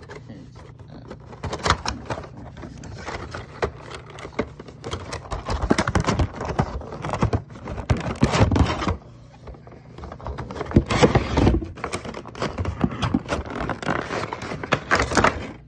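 A cardboard Funko Pop box and its clear plastic insert being handled and opened: irregular scraping and rustling with small knocks and clicks as the vinyl figure is worked out of the packaging.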